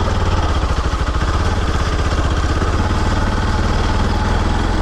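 Motorcycle engine running steadily at low speed, its even firing pulses heard under a constant rushing noise.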